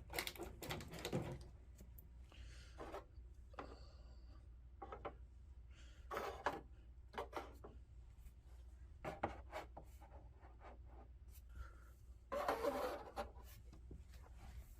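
Small plastic toy furniture pieces being handled, set down and slid into place on a plastic diorama: scattered light clicks and rubs, with a longer scraping rub about twelve seconds in.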